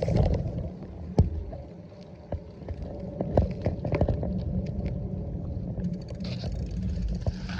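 Low rumbling wind noise on the microphone, with scattered clicks and knocks from handling. A higher hiss comes in near the end.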